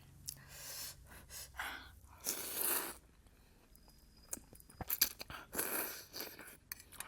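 Close-miked eating sounds: chewing and wet mouth noises from eating thukpa noodle soup and jhol momo dumplings, with irregular short noisy bursts and a few sharp clicks.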